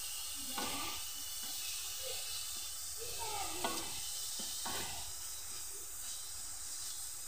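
Wet leafy greens sizzling and steaming in a hot metal karahi while a spatula stirs them, knocking or scraping the pan a few times. The water from the washed greens is boiling off as they are dried in the pan.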